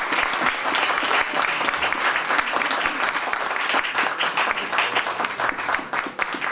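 Audience applauding, a dense patter of many hands that thins out near the end into fewer, separate claps.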